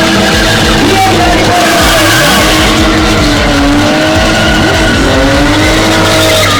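BMW E36 engine revving hard as the car spins, its pitch rising and falling, over continuous tyre squeal.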